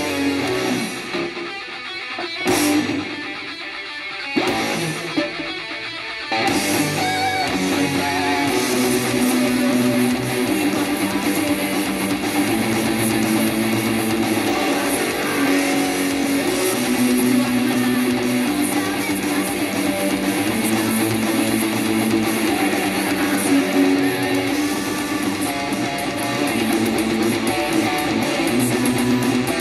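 Les Paul-style electric guitar played with a pick, strummed chords and picked notes. There are short phrases with gaps at first, and from about six seconds in the playing is continuous.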